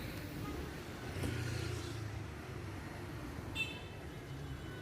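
Road traffic with a car engine running as a low rumble. A short high-pitched chirp comes about three and a half seconds in.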